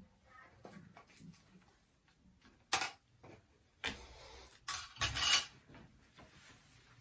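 Glassware, a wine bottle and a metal ice bucket clinking and knocking as they are gathered onto a serving tray: four or five separate knocks, the loudest a cluster about five seconds in.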